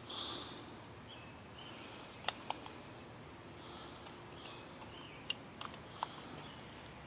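A few light, sharp clicks scattered over several seconds: small screws and plastic stove-knob parts being picked up and handled. Faint high chirps sound in the background.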